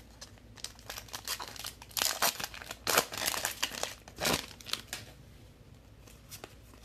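Plastic wrapper of a trading-card pack crinkling as it is handled and torn open, in a run of irregular crackles that is busiest through the middle and dies away near the end.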